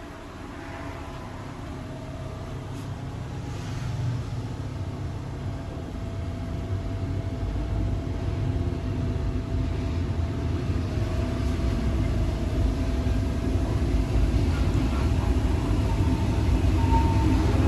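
Interior running noise of the RBDe 4/4 I 222 electric railcar, heard from its door vestibule: a steady low rumble with a faint steady tone, growing steadily louder.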